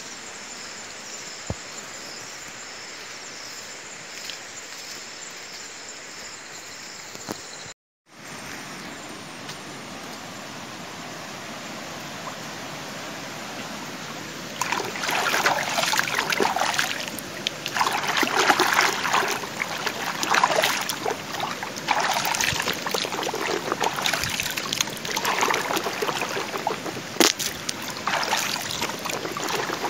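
Shallow stream running over stones, trickling and babbling. It grows much louder about halfway through, in uneven surges. Before that there is a steady outdoor hiss, with a brief dropout at a cut.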